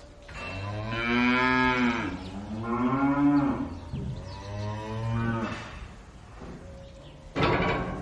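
Holstein dairy cows mooing in a barn: three long, drawn-out calls one after another, the middle one loudest. Near the end comes a short, loud burst of noise.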